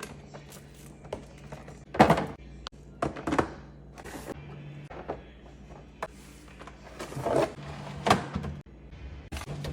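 Food containers and items being set down and moved around in a refrigerator: irregular knocks and clunks with short scraping and rustling, the loudest about two seconds in and near the end.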